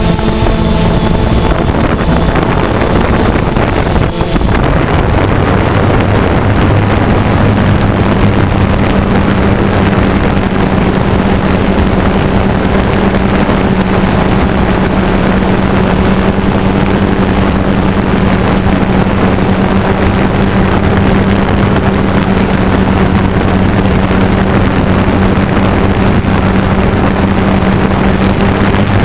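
Remote-controlled hovercraft's motor and fan running steadily, heard close up, with wind on the microphone. Its pitch shifts and dips briefly about four seconds in, then holds a steady hum.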